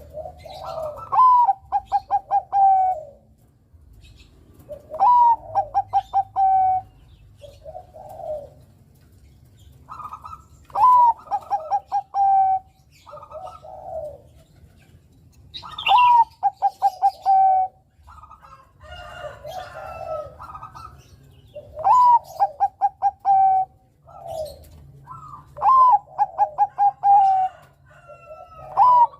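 Zebra dove (Bangkok perkutut) singing, about six full phrases. Each phrase opens with a rising note and breaks into a quick stutter of clipped coos, with shorter, lower coos between the phrases.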